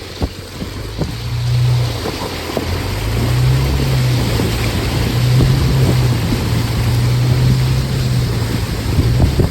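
Jeep Wrangler engine running at low revs off-road, its pitch rising and falling a little as it works. Wind noise on the microphone and scattered clicks and crackles run over it.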